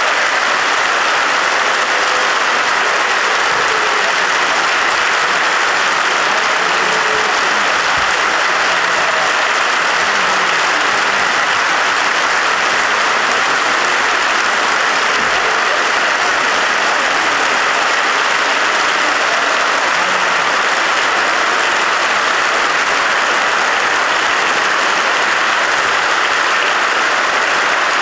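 A packed hall of parliamentarians applauding in a standing ovation: dense, steady clapping without a break.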